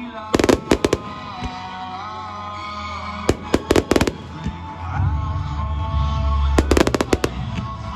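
Fireworks bursting in three quick clusters of sharp bangs, near the start, about three seconds in and near the end, over continuous music.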